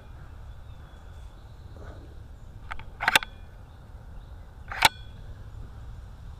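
Sharp clicks of rifle handling a few seconds in, then a single short crack near the end: a .22 LR shot with subsonic Lapua Long Range ammunition from a 10/22-pattern rifle with a 28-inch Green Mountain stainless bull barrel.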